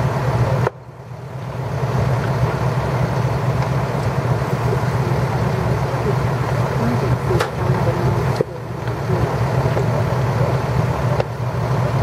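Fire trucks' diesel engines running steadily with a low hum. The sound drops away suddenly twice, about a second in and again past eight seconds, then swells back.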